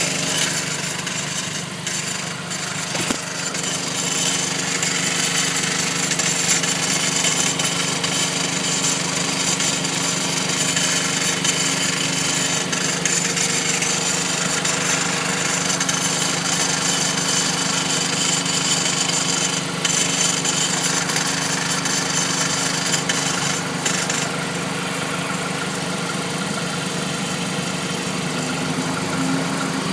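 2009 Mazdaspeed3's turbocharged 2.3-litre four-cylinder running steadily, with an unidentified strange noise from the passenger side of the car. The sound is a steady hum with a high hiss over it; the high part eases a little about three-quarters of the way through.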